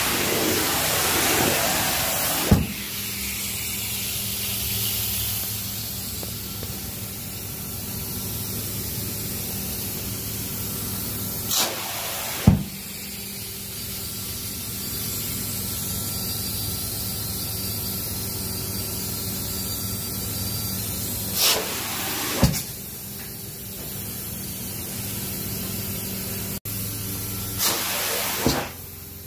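Carpet extractor's vacuum sucking flood water out of wet carpet through a flat plate extraction tool and hose: a steady hissing rush over a low motor hum. It rises in brief louder rushes, and sharp knocks come roughly every ten seconds.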